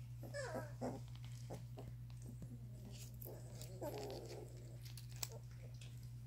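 Young Doberman puppy's small vocal sounds: a short whimper falling in pitch just after the start, then a rough grunt about three seconds in, with faint soft clicks, over a steady low hum.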